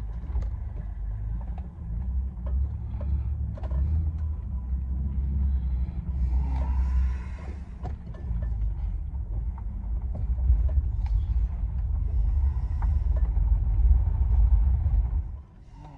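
2003 Ford Ranger pickup under way, heard from inside the cab: a steady low engine and road rumble that grows louder as the truck gathers speed, then drops off suddenly near the end. The engine has just had a misfire repaired and a tune-up and is running without missing.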